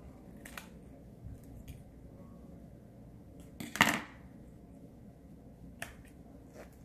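Scissors cutting a flap off folded paper: a few short, soft snips and clicks, with one louder clack about four seconds in.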